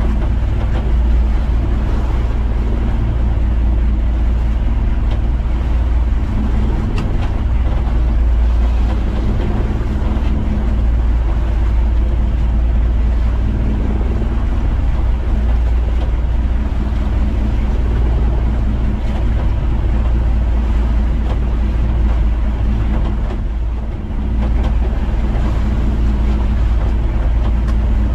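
Outrigger fishing boat's engine running steadily under way, a loud, unbroken low rumble with the hiss of water and wind.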